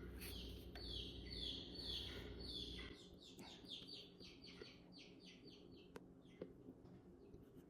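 A quart bottle of motor oil glugging as it is poured into the fill hole, a steady run of short chirping glugs that come faster and fainter as the bottle empties, then stop. A couple of faint clicks follow near the end.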